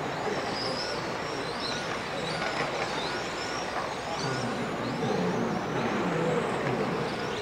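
Electric radio-controlled racing cars lapping an indoor track: several high motor whines rise and fall over and over as the cars accelerate and brake, over a steady hiss of hall noise.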